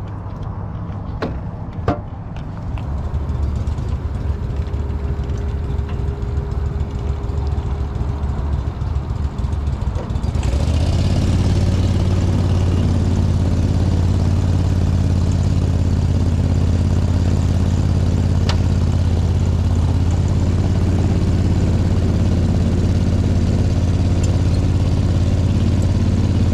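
An engine running steadily. About ten seconds in it grows louder and a wide hiss joins it, then it runs on evenly.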